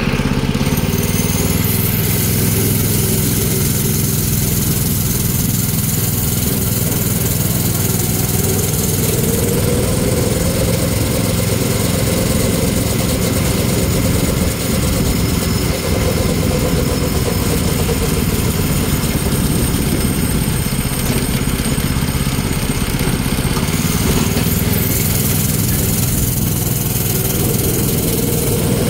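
Go-kart's Predator 212 single-cylinder four-stroke engine running steadily while the kart is driven down the street, with rushing wind noise on the microphone that comes and goes.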